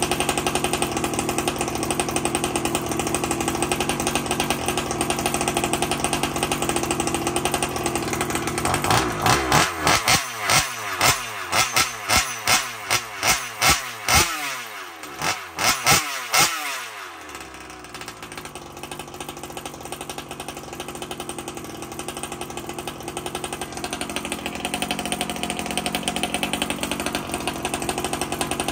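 Rovan 5B 1/5-scale RC buggy's 27cc two-stroke gas engine idling steadily, then free-revved in a string of about a dozen quick throttle blips with the rear wheels held off the ground, before settling back to a quieter idle.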